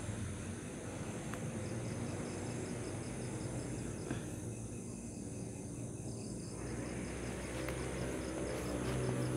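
Crickets chirping in a steady, rapid pulse of about five chirps a second, over a steady high insect buzz, with a low hum underneath.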